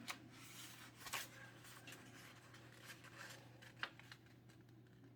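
Sheet of A4 paper being folded in half and creased: faint rustling with a few soft crinkles, the sharpest about a second in and just before four seconds in.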